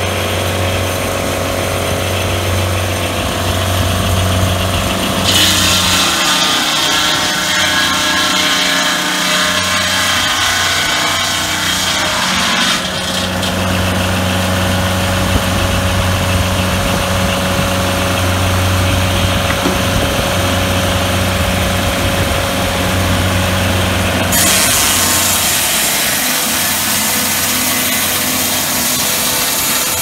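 Gladiator M12 swing-blade sawmill running: its engine hums steadily while the large circular blade saws through a log. The sawing noise grows louder about five seconds in and again near the end.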